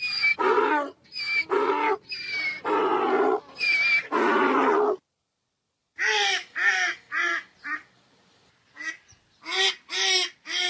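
Ducks quacking: about five longer, loud calls in quick succession, then after a pause of about a second a fast run of short quacks.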